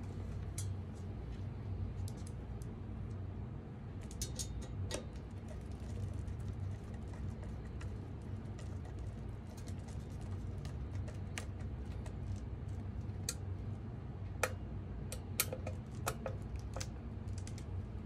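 Hand screwdriver driving small screws through a metal mounting plate into an access point: scattered light clicks and ticks of metal on metal, over a steady low hum.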